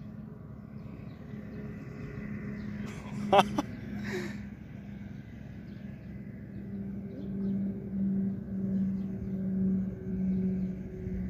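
A motor runs steadily with a low hum, swelling and fading roughly once a second in the second half. A brief sharp sound comes about three and a half seconds in.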